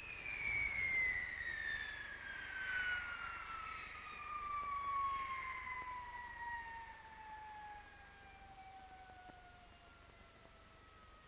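High turbine whine from the Avrocar's jet engines and turborotor, falling steadily in pitch and fading as they spool down.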